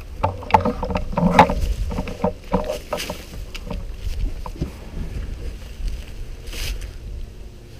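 Low rumble of wind and handling on a head-mounted camera microphone, with scattered knocks and rustles and a short hiss near the end.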